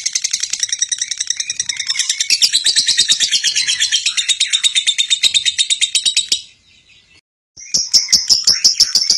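Lovebird chattering in a fast, continuous run of high-pitched chirps, several a second. It breaks off for about a second two-thirds of the way through, then starts again.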